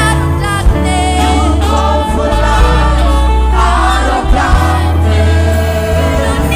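Gospel choir singing over a band, with a steady deep bass line underneath.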